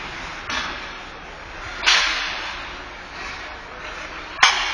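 Ice hockey play in an indoor rink: three sharp cracks of stick, puck and skates on the ice and boards, the loudest about two seconds in, each ringing out in the arena's echo.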